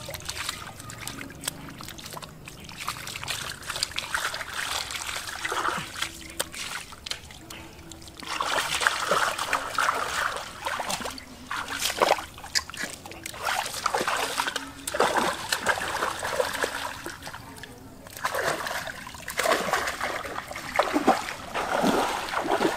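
Splashing and sloshing in shallow muddy water as hands grope for fish, in irregular bursts that grow heavier about a third of the way in and again near the end.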